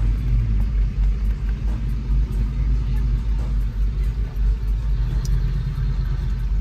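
Low, steady car rumble heard from inside a car's cabin as it creeps along in slow traffic.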